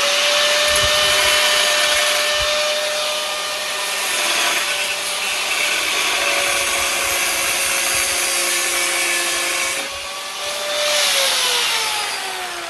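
Angle grinder with a cutting disc running at full speed and cutting into a metal engine rocker cover: a steady high whine over a grinding hiss, dipping a little as the disc bites. Near the end the whine falls in pitch as the disc winds down.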